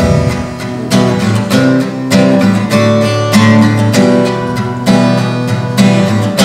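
Steel-string acoustic guitar strummed in a steady rhythm, about two strums a second.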